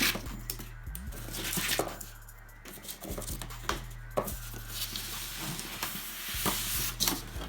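Packing material rustling and crinkling as statue parts are handled and lifted out of a shipping case, with scattered knocks and clicks. A steady low hum runs underneath.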